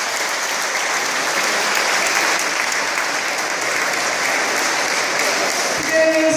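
Audience applause, a steady patter of clapping echoing in an indoor pool hall. Near the end a held musical tone comes in over it.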